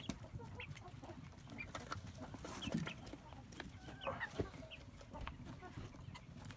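Chickens clucking: many short, scattered calls with a few sharp clicks among them.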